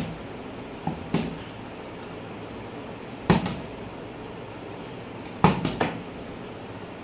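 A part-filled plastic juice bottle flipped and landing on a tabletop: two knocks about a second in, a single knock a little past three seconds as it falls over, and a quick run of three knocks near the end as it lands and settles upright.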